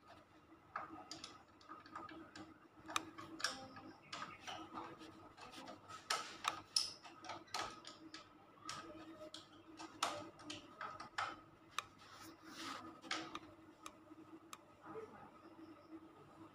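Scattered, irregular clicks and taps of a screwdriver and stiff electrical wires against miniature circuit breakers and a steel panel box as the wires are fitted to the breakers, over a faint steady hum.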